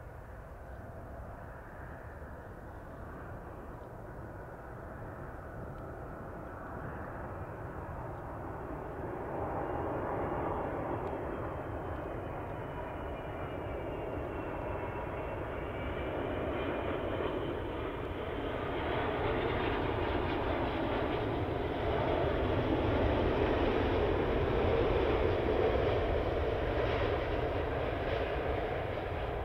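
Airbus A380 airliner's four jet engines on final approach, a steady rumble that grows louder as the aircraft comes in to land. A faint high engine whine dips and then rises in pitch partway through.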